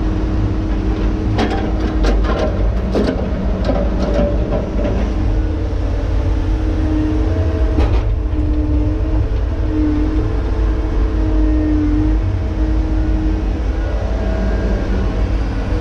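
Tigercat log loader's diesel engine and hydraulics running steadily, heard from inside the operator's cab. A series of sharp knocks and clacks in the first few seconds as the grapple handles logs, then a whine that comes and goes while the boom swings.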